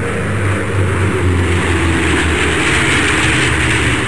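A propeller airplane's engine running steadily, a little louder through the middle.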